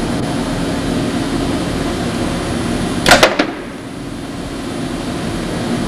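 Unimate Puma 760 industrial robot arm running with a steady hum. About three seconds in comes a brief sharp clatter of two or three quick strokes as the gripper lets go of the wooden back piece in the press fixture. After it the hum dips and slowly builds again as the arm moves off.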